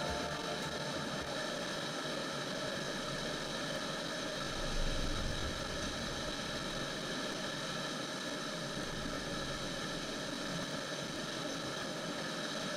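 Steady rushing of whitewater: a river pouring over a low ledge into a churning, foaming hole.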